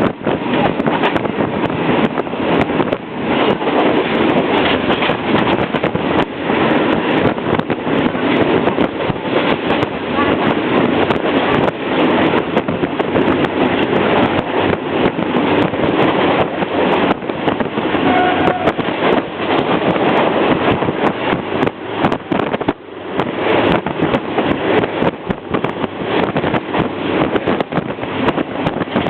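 Third-class railway carriage running along the track, heard at the window: a loud, steady rattle and clatter of wheels and carriage, with rushing air.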